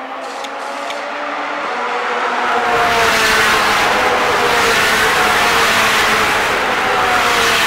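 Ferrari Challenge race car's V8 running hard at high revs. It grows louder over the first three seconds and then holds steady, its pitch drifting gently.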